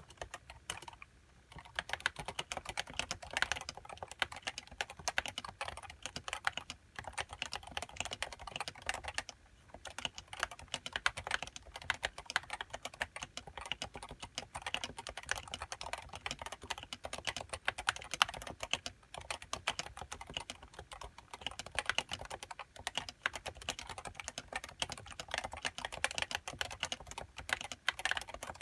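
Continuous typing on a Leopold FC660C keyboard with uniform 55 g Topre electrostatic capacitive switches and HiPro keycaps: a rapid run of keystrokes, with short pauses about a second in and near ten seconds in.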